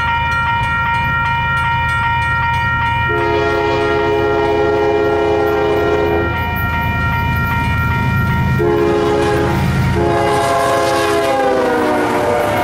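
CSX diesel freight locomotive approaching and passing, sounding its chime air horn in a series of long blasts over the steady low rumble of its diesel engine. Near the end the horn's pitch drops as the locomotive goes by.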